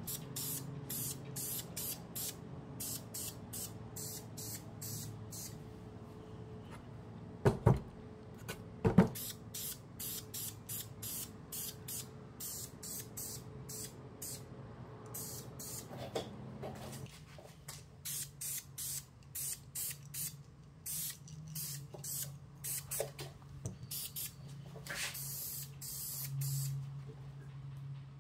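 Aerosol can of engine enamel spray paint hissing in many short bursts as black paint is sprayed on. Two sharp knocks about a third of the way in are the loudest sounds.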